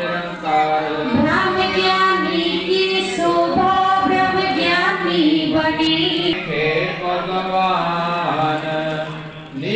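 Devotional hymn singing, most likely Sikh kirtan: one voice gliding between long held notes over a steady drone.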